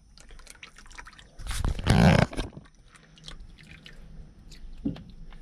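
A freshly removed, oil-filled spin-on oil filter being handled: small clicks and wet, dripping sounds as oil runs from it, with one louder thump about two seconds in.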